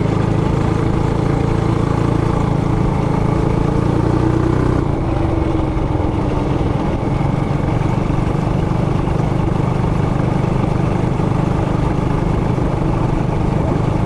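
Trailmaster Hurricane 200X mini bike's single-cylinder four-stroke engine running steadily; its even note breaks up into a rougher, less even sound about five seconds in.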